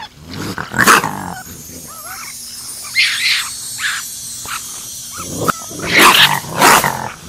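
Male raccoon growling and barking in harsh, wavering bursts: a short call about a second in, another around three seconds, and a longer run near the end.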